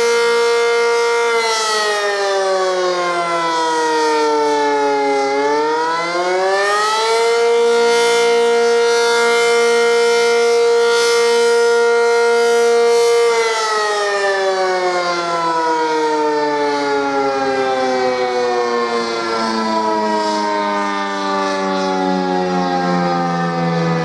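ACA Cyclone 125 outdoor warning siren sounding the attack signal, a rising and falling wail. Its pitch holds, sinks for about four seconds, climbs back quickly and holds for about six seconds, then sinks slowly over the last ten seconds.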